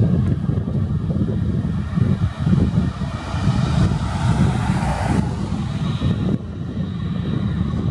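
Airbus A320neo's Pratt & Whitney PW1100G geared turbofans running at taxi power as the airliner rolls slowly onto the runway: a steady low rumble, with a faint high whine in the last couple of seconds.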